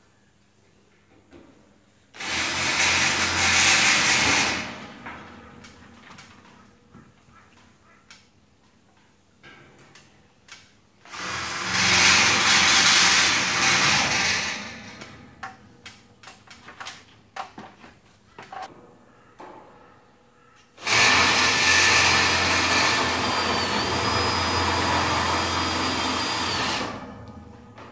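Cordless drill run in three bursts against a galvanised steel stable frame, fixing a sliding-door track in place; the last and longest burst, about six seconds, carries a whine that dips briefly then holds. Light clicks and knocks of handling between the bursts.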